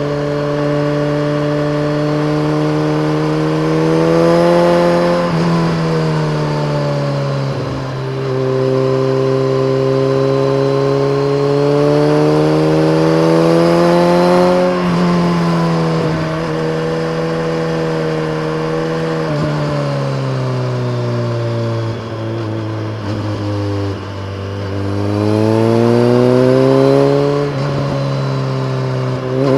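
BMW K1300R's inline-four engine through a full Akrapovic race exhaust with a dB killer, pulling hard while riding: the pitch climbs in long sweeps and drops sharply at each upshift. About twenty seconds in the pitch falls slowly as the bike slows, then it accelerates again.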